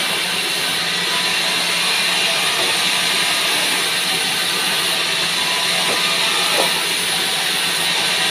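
Large sawmill band saw running with a pine slab being fed through it: a steady hiss with a low hum beneath.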